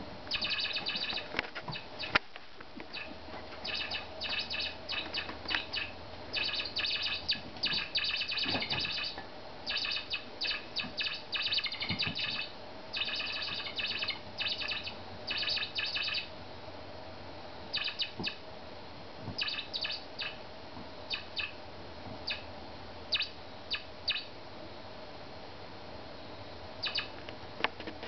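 Toy mouse squeaking in quick, high-pitched chirps as a kitten bats and bites it, in dense runs for about the first half, then in scattered bursts.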